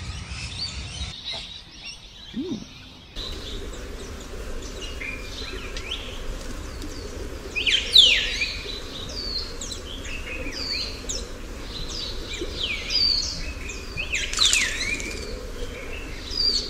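Wild birds chirping and calling, many short sharp calls that slide down in pitch, loudest about eight seconds in and again about fourteen seconds in, over a steady low background hiss.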